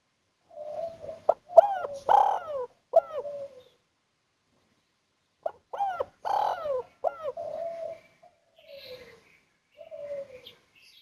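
Spotted dove (tekukur) of the 'kuk 1' song type cooing: two full song phrases of repeated arched coos, each ending in a single 'kuk' note, then two fainter coos near the end.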